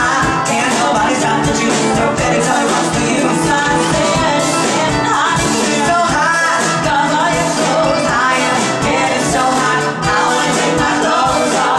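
Live pop-rock band music: a man singing lead over strummed ukulele and drums keeping a steady beat.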